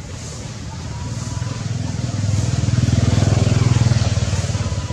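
Low engine rumble of a passing motor vehicle, swelling from about a second in, loudest around three to four seconds, then fading.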